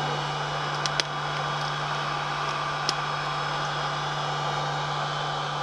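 Hot-air heat gun running steadily with an even whir, with a couple of small clicks from vinyl film being pressed and handled.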